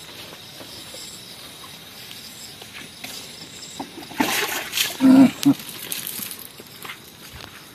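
Faint steady rural background. About four seconds in there is roughly a second of splashing or sloshing water, then a short, low voice-like sound.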